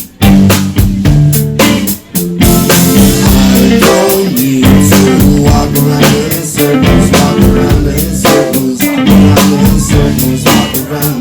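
Live band playing loudly with drum kit, bass and guitar. The music cuts out for a moment right at the start and again about two seconds in, then drives on steadily.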